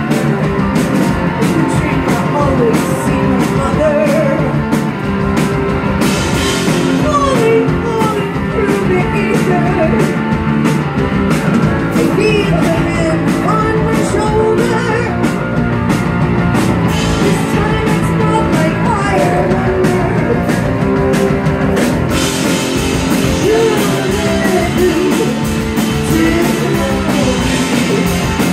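Live rock band playing loud: electric guitars, bass guitar and a drum kit, with a woman singing.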